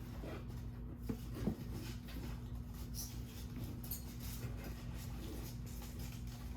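Packing peanuts rustling faintly as they are dumped out of a shipping box and stirred by hand, with scattered light scratches and taps.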